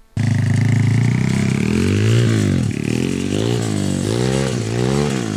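Small single-cylinder pit-bike engine on a homemade drift trike, revving hard as it pulls away. The pitch climbs steadily for about two seconds, then drops and climbs again three or four times as the throttle comes off and on. Its rear wheels run on plastic pipe sleeves, so the engine spins up to the rev limiter in each gear.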